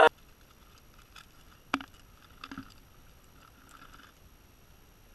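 Quiet handling sounds: one sharp click a bit under two seconds in, then a few soft knocks around two and a half seconds, over faint background noise.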